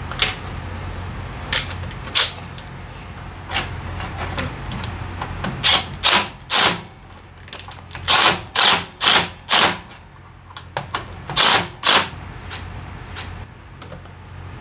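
Cordless impact driver hammering in short bursts, about nine in all, in groups of two to four, with a few lighter metallic clicks before them. A steady low hum runs underneath.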